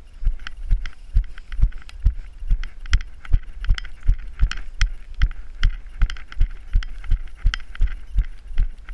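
A person's jogging footfalls on a grass track, a steady dull thump about two and a half times a second, each with a sharper tick on top.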